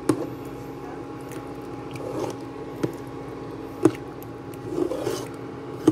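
Cheese cubes being dropped and pressed into thick tomato sauce in a pot, soft squishes with four sharp clicks, over a steady hum.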